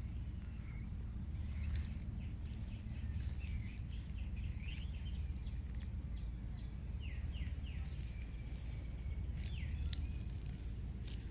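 Birds chirping in short, quick high notes, scattered through with a denser run in the middle, over a steady low rumble.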